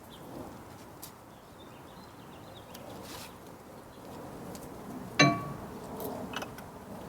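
Self-retracting ratcheting tie-down strap being handled and hooked up: scattered light clicks, and about five seconds in one sharp metallic clink that rings briefly, like the strap's metal hook striking metal.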